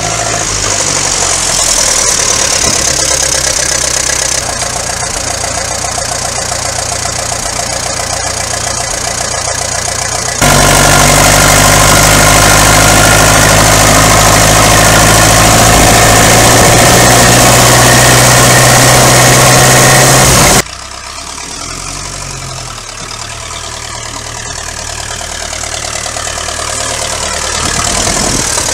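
1951 Ferguson TED20 tractor's four-cylinder engine running as the tractor is driven. For about ten seconds in the middle it is louder and steadier, heard from the driver's seat, then quieter again and building near the end.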